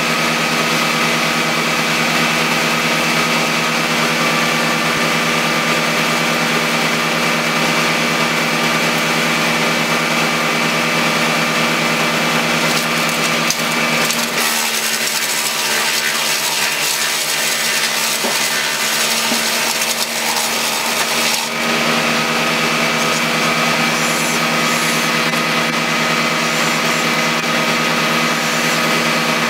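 Small engine-driven power equipment running at a steady speed throughout. From about 14 to 21 seconds in, a harsher sawing or grinding noise takes over, as when wood is being cut or chewed.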